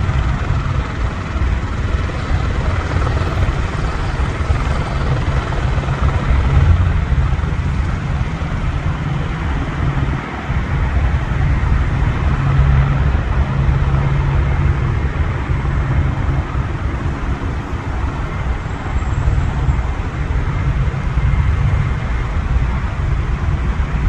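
Helicopter running steadily, a deep pulsing rotor beat under a broad engine rush.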